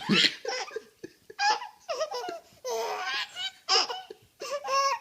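Five-month-old baby laughing: a string of short laughs, one after another, with brief pauses between them.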